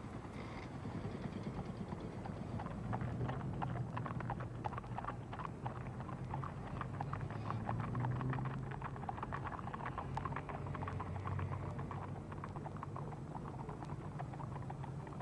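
Horse's hooves clip-clopping on a street, a quick irregular run of clops through the middle of the stretch, over a low steady rumble.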